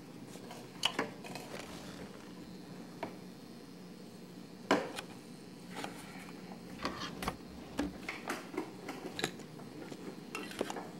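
Small hard objects being handled on a counter and in a drawer: a scatter of light clicks and knocks, the loudest about five seconds in, with a quicker run of clicks and clatter in the second half, over a faint steady hum.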